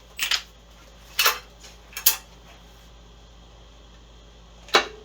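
Four sharp metallic clinks and clanks of tools and parts being handled, with quiet between them; the last comes near the end.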